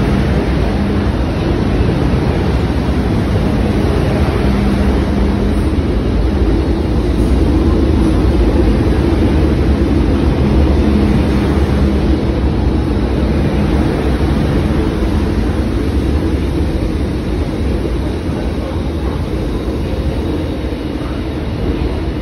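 MTR M-train, a Metro-Cammell electric multiple unit, passing through a station platform without stopping: steady wheel and track noise with a constant low hum. It is loudest about halfway through and fades gradually toward the end as the train runs off.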